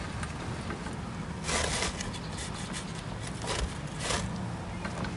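Steel scissor-type RV stabilizer jack being cranked, its lead screw and arms scraping and rubbing, with two louder scraping bursts, about a second and a half in and again near four seconds.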